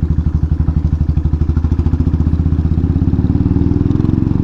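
Motorcycle engine running at low revs as the bike rolls slowly along, with a steady, evenly pulsing exhaust beat.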